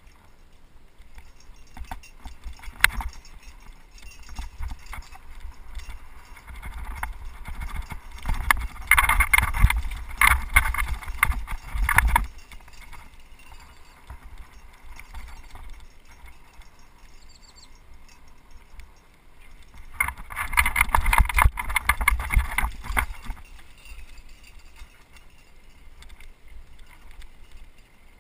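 Mountain bike riding down a rough dirt trail, rattling and clattering over bumps under a steady low rumble. The clatter grows loud for several seconds about a quarter of the way in, and again about three quarters of the way in.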